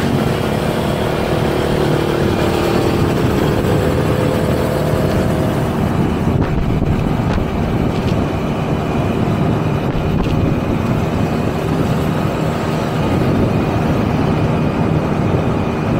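Small 50cc moped engine running steadily at cruising speed, with wind rushing over the microphone as it rides.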